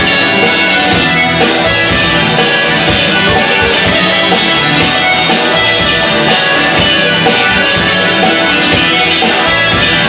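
Rock song in an instrumental passage with no singing: a full band with guitar over a steady drum beat.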